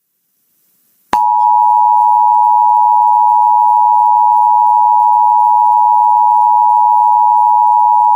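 Emergency Alert System attention signal: after about a second of silence, a steady electronic tone starts and holds unchanged. It announces the emergency alert that follows, here a severe thunderstorm warning.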